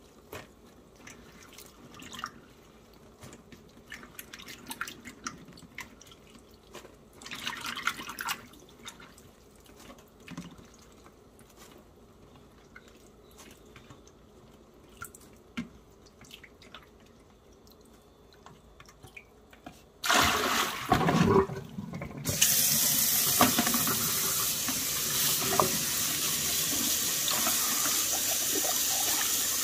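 Light scattered clicks and knocks of handling, then about two-thirds of the way through a tap is turned on and water runs steadily and loudly into a sink.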